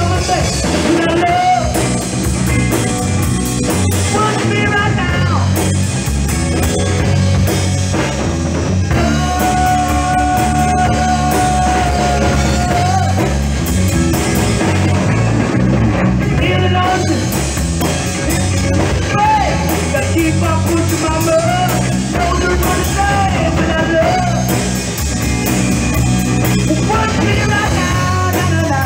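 Live rock band playing: electric guitar, electric bass and drum kit, with a man singing over them. A long held note rings out in the middle.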